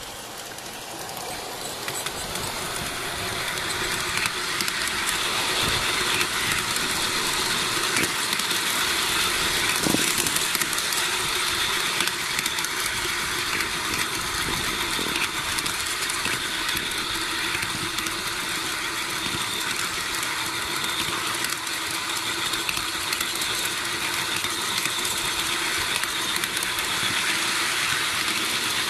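Garden-scale model train rolling along its track: a steady rolling rattle of small metal wheels on the rails, with many small clicks. It grows louder over the first few seconds as the train gets moving.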